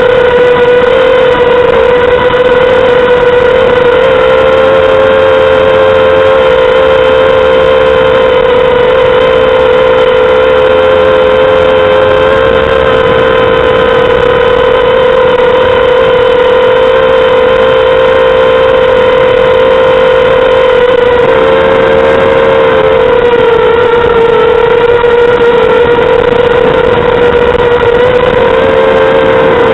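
Mini quadcopter's 2400kv brushless motors and propellers running in flight: a loud, steady whine whose pitch shifts slightly up and down several times with the throttle.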